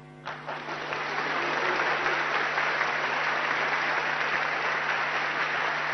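Large audience applauding, starting a moment in and swelling within a second to steady clapping.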